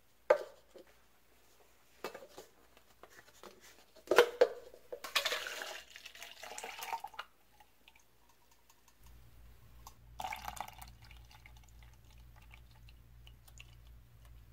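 A reusable plastic cup and its lid knocking on a granite counter in a few sharp knocks, the loudest just after the start, then liquid pouring and splashing into the cup. A faint low hum comes in about two-thirds of the way through.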